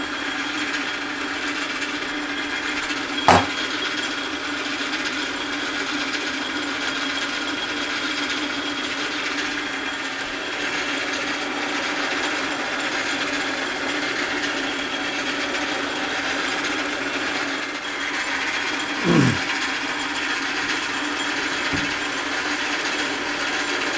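Belt-driven metal lathe running steadily while a drill bit in the tailstock chuck bores into the end of a piece of hex bar stock. A sharp knock about three seconds in, and a short downward sweep a little before the end.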